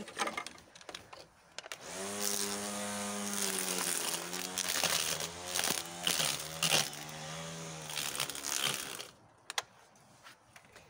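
Electric string trimmer starting about two seconds in and running with a steady whine, its pitch dropping a little as the line cuts into weeds, with sharp ticks of the line striking stems. It stops about nine seconds in, leaving only a few clicks.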